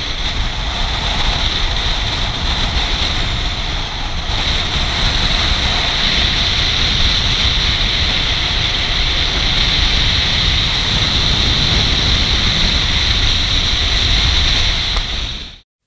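Steady rush of wind and road noise from a car driving at highway speed, heard through a car-mounted GoPro with wind buffeting the microphone, with a low rumble under a steady hiss. It cuts off suddenly near the end.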